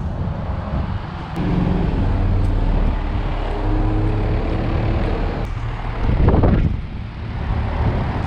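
Armstrong Concept 10 outdoor heat pump running: a steady compressor and fan hum that gets louder about a second and a half in, with a brief louder whoosh about six seconds in.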